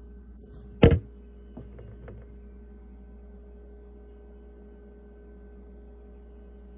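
Steady low electrical hum, with a single loud, sharp knock about a second in and a few faint taps shortly after.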